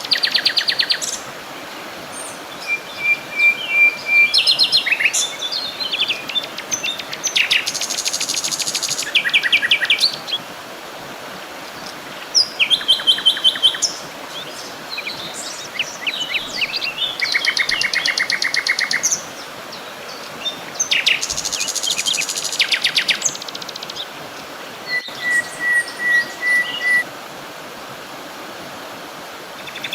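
Several songbirds singing: a chorus of rapid trills and chirping phrases, one after another, over a steady background hiss.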